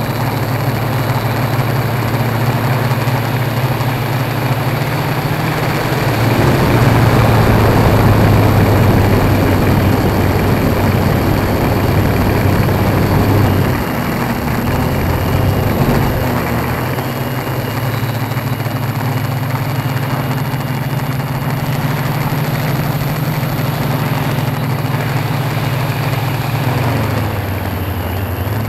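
Tarot 680 Pro hexacopter's electric motors and propellers running in flight, a steady pitched hum. From about a fifth of the way in to about halfway it is louder and rougher, with the pitch shifting, then it settles back to a steady hum.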